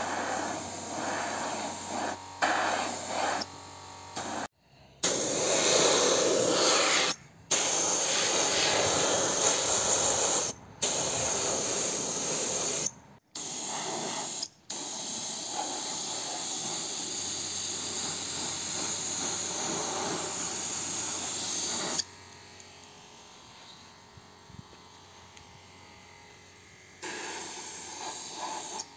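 Gravity-feed compressed-air paint spray gun hissing in long bursts as paint is sprayed onto axle parts, cutting off abruptly several times, with a few seconds of quieter sound near the end.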